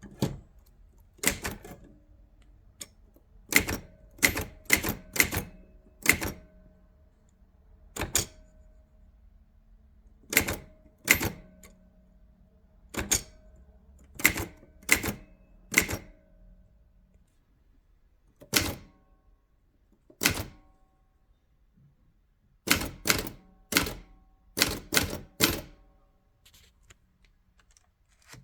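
Keys of a Facit TP2 manual typewriter striking the paper one at a time in slow, irregular typing: about two dozen separate clacks, some in quick runs and some after pauses of a second or two, each with a short ring from the machine.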